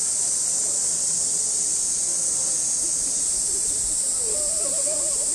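A steady high-pitched hiss, with faint distant voices from about four seconds in.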